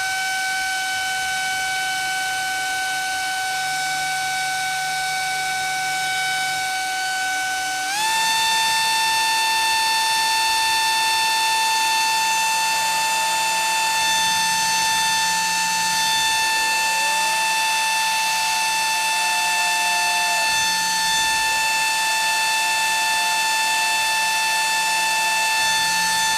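Small high-speed electric motor of a homemade mini fan running with a steady high-pitched whine. It steps up in speed, and the whine rises in pitch, about eight seconds in.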